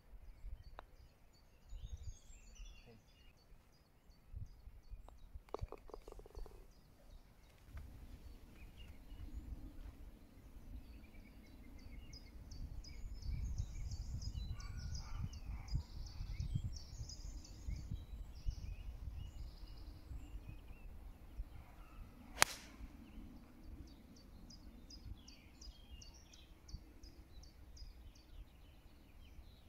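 Birds singing over wind rumbling on the microphone. About two-thirds of the way through comes one sharp crack: a golf club striking the ball off the tee.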